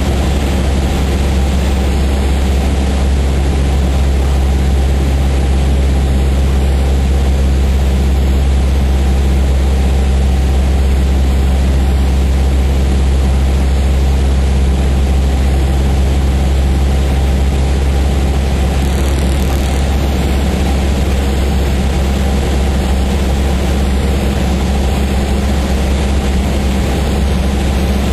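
Cessna 152's Lycoming O-235 four-cylinder engine and propeller droning steadily, heard from inside the cabin.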